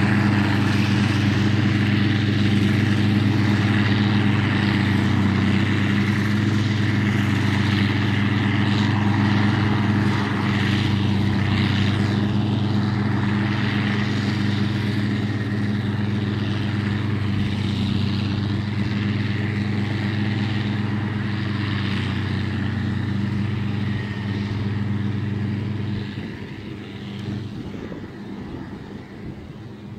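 Diesel engine of a Track Marshall crawler tractor running steadily under ploughing load, fading away in the last few seconds.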